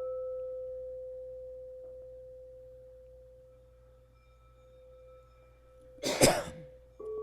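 A quartz crystal singing bowl rings with one steady pure tone, fading slowly. About six seconds in there is a brief loud bump, and just before the end a second, slightly lower-pitched bowl is struck and rings.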